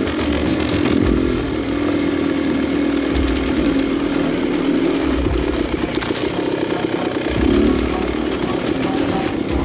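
Two-stroke dirt bike engine running under way, its pitch rising and falling with the throttle, with scattered knocks and rattles from the rocky trail.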